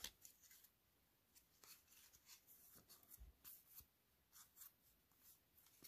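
Near silence with faint, scattered rustles and light ticks of trading cards and their packaging being handled as a deck is taken out.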